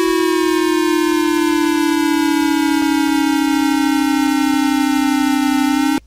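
Civil defense siren sounding one loud steady tone that slowly falls in pitch, then cuts off suddenly near the end.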